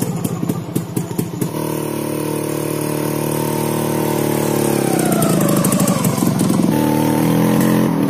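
Motorcycle engine running as the riders pull away: a few clicks at first, then a steady engine note from about a second and a half in, whose pitch dips and then steps up again in the second half as the engine's speed changes.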